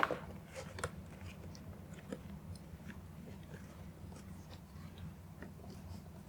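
Plastic interior trim panel being pushed and handled into place: a sharp click at the start, then scattered small plastic ticks and creaks.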